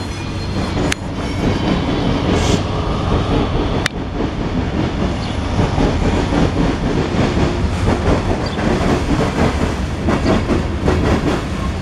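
Freight train's tank cars and covered hoppers rolling past at close range: a steady rumble of steel wheels on rail, with clickety-clack over the rail joints and a couple of sharp clicks in the first few seconds.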